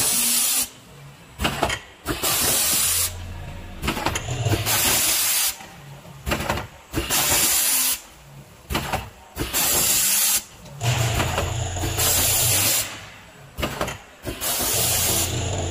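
Vertical form-fill-seal powder packing machine running its bagging cycle: loud hisses of compressed air from its pneumatic cylinders in bursts every couple of seconds, with a low mechanical hum under some of them.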